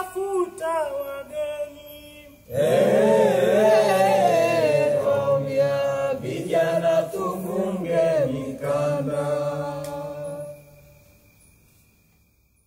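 A single voice sings a few short notes. About two and a half seconds in, a group of voices comes in loudly with a long held chant, then fades away near the end.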